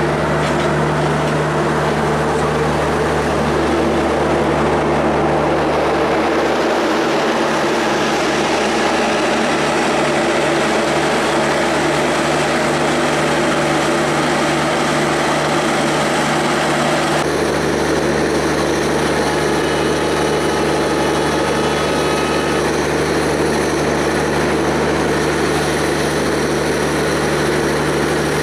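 Bangladesh Railway intercity passenger train moving slowly past: a steady engine drone over the noise of the rolling coaches, changing in tone abruptly about two-thirds of the way through.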